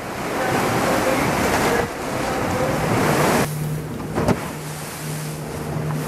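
Surf washing and churning in a sea cave. About three and a half seconds in, the sound cuts to a quieter scene: the steady low hum of the tour boat's engine under way, with water rushing past and wind on the microphone.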